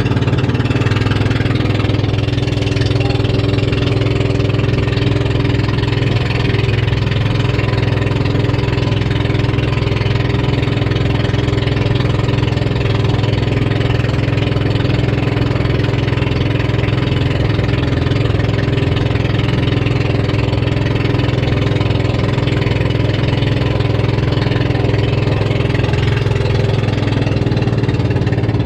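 Outrigger fishing boat's engine running steadily at a constant speed, with an even, unbroken drone.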